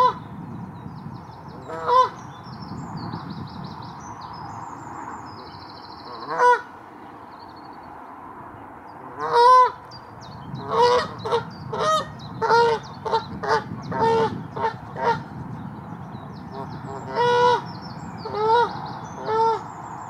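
Canada goose honking: single honks a few seconds apart, then a quick run of about ten honks in the middle, and a few more near the end.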